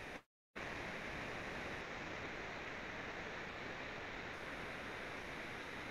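Steady hiss of background noise from an open microphone line, with no speech. It cuts out completely for a moment shortly after the start, then carries on.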